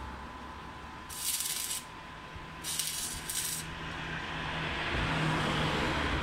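Three short bursts of hissing, each under a second, the last two close together, over a steady low rumble like passing traffic.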